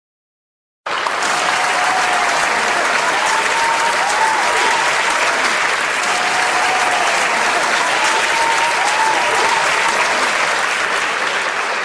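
Large audience applauding: many hands clapping in a dense, steady roar that starts suddenly about a second in, with a few faint voices calling out over it.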